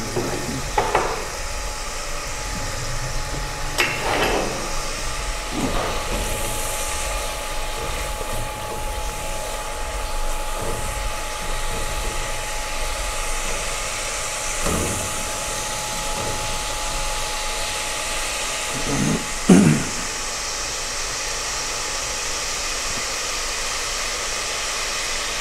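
Chicken frying in oil and masala in an aluminium pot on a gas burner, a steady rushing sizzle, with a silicone spatula stirring and scraping the pot now and then, the loudest scrape near the end.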